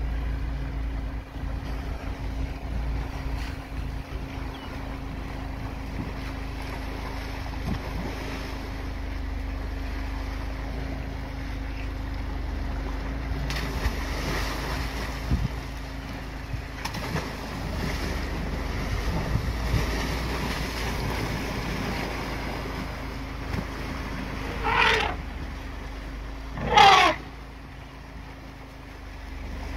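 Wind on the microphone over a flooded river, with a steady low hum underneath and elephants splashing through the water about halfway through. Near the end an elephant trumpets twice in quick succession, the second call louder.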